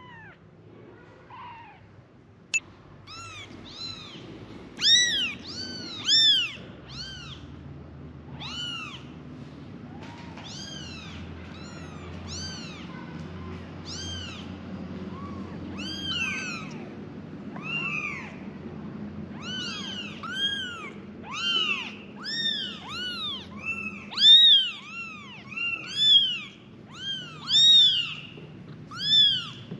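Young kittens mewing for their mother: many short, high, rising-then-falling mews from several kittens, overlapping and coming thicker and louder in the second half. A single sharp click about two and a half seconds in.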